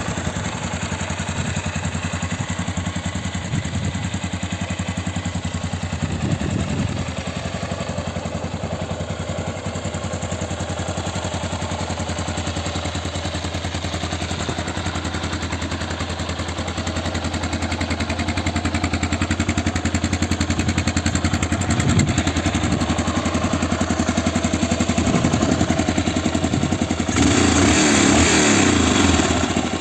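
Honda XL 500 S single-cylinder four-stroke engine idling steadily with an even thumping beat. Near the end a louder, noisier stretch lasts a couple of seconds, then cuts off.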